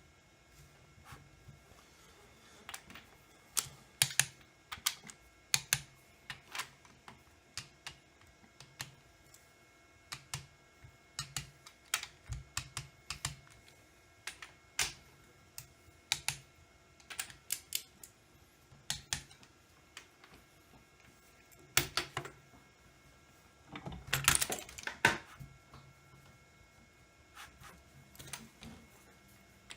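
Irregular sharp clicks and taps of hand tools and metal parts being handled during engine assembly, with a longer, denser clatter about 24 seconds in.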